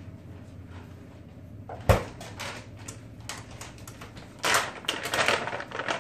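A sharp knock about two seconds in, then plastic crinkling and rustling near the end as a bag of shredded cheese is handled and opened.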